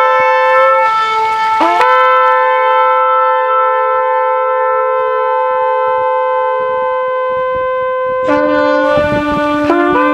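Shofars (ram's horns) sounded in long held blasts, more than one horn at once at different pitches. A note slides up into pitch about two seconds in, and a lower horn joins about eight seconds in.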